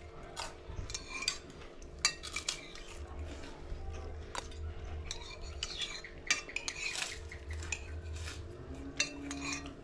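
Cutlery clinking and scraping on plates during a meal: many short, irregular clicks and taps, with a faint steady hum underneath.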